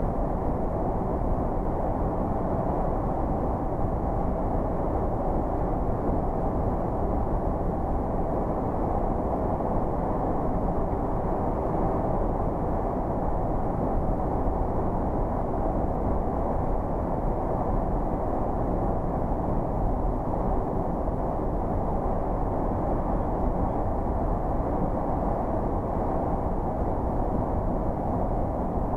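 Steady road and engine noise heard inside a vehicle's cabin while driving through a road tunnel: an even, low rumble that does not change.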